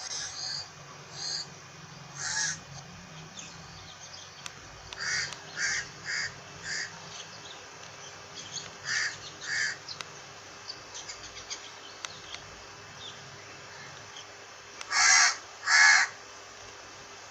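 Crow cawing: short calls in small groups, one to four caws at a time with pauses between. The loudest two caws come close together near the end.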